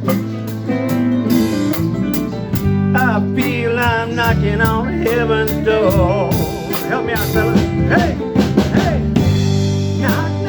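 Live band at a sound check playing a slow blues-rock song, with drums and guitar. A lead melody line with bending, wavering notes rises over the band from about three seconds in.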